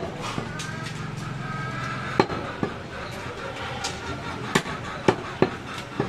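Butcher's knife chopping goat meat and bone on a wooden tree-stump block: sharp chops, one about two seconds in and several in quick succession near the end. A low, steady hum runs under the first couple of seconds.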